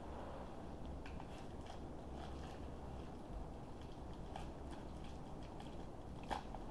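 Faint crinkling and crackling of a small plastic wrapper being picked open by fingers, with a sharper click about six seconds in, over a low steady room hum.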